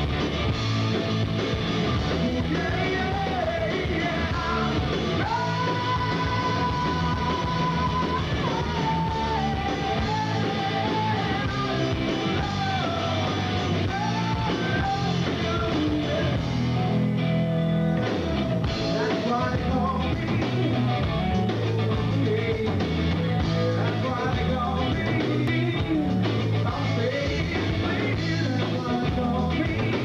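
A rock band playing live: electric guitar, bass guitar and drums, with a singer's voice over them, one note held for a few seconds about five seconds in.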